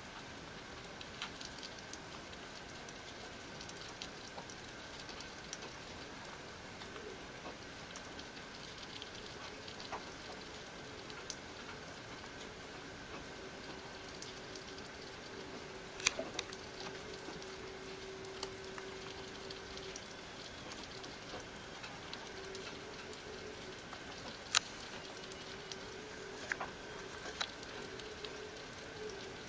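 Opossums feeding from a bowl of raw minced meat: a steady run of small, wet clicks and smacks of chewing and licking over a light hiss, with two sharp clicks, one just past halfway and one later on.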